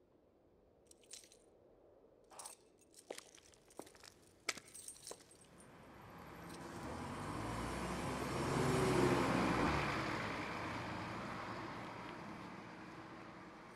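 A few scattered sharp clicks and taps, then a car passes by: its engine and tyre noise swell to the loudest point about nine seconds in and fade away.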